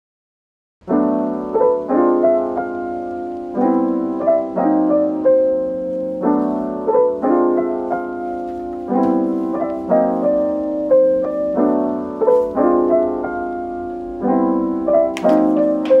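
Background piano music: a soft, gentle piano piece of repeated chords with a melody over them, starting about a second in.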